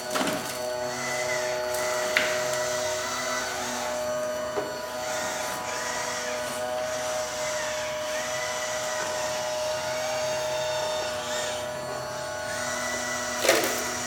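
Small electric motors and hydraulic pumps of radio-controlled construction models whining steadily, with the pitch rising and falling as the machines work, and a sharp click about two seconds in and another near the end.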